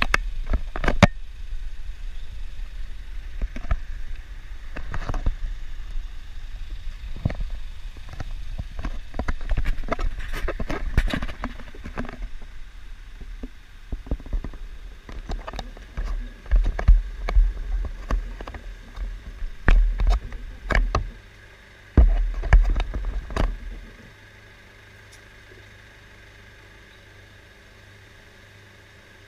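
Remote-control model bus running, a low rumble with frequent knocks and clattering over a faint steady whine; the running stops about three quarters of the way in, leaving a low hum.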